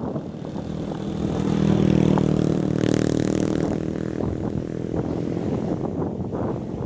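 Diesel engine of a road roller running under load, growing louder as it comes close, loudest about two to three seconds in, then easing off as it moves away.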